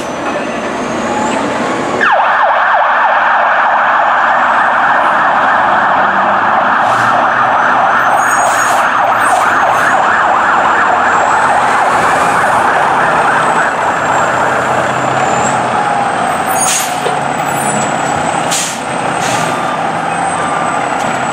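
Fire truck siren starting abruptly about two seconds in and sounding loudly, easing off a little near the end.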